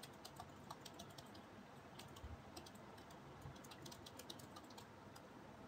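Faint typing on a computer keyboard: quick key presses in short runs, with brief pauses between them.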